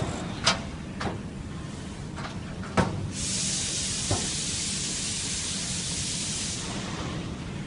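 Sharp metal knocks and clunks of steel filing-cabinet drawers being slid onto their runners and pushed shut, the loudest about three seconds in. A steady hiss sets in right after it and stops about a second before the end.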